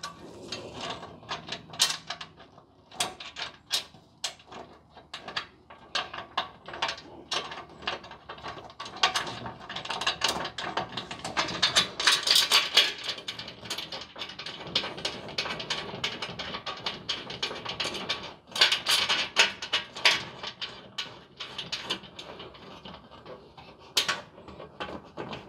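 Hand ratchet wrench clicking in quick runs as nuts are tightened on the carriage bolts that join a pickup bed's front rail to its header panel, with scattered clicks and light metal clinks between the runs.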